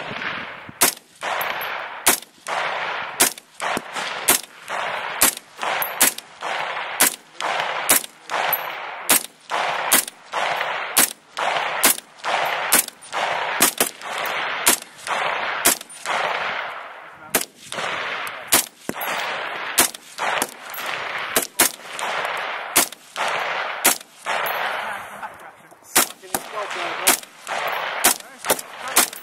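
Diemaco C8 5.56 mm carbine fired in steady, deliberate single shots, about one to two a second and unevenly spaced, each shot trailed by an echo.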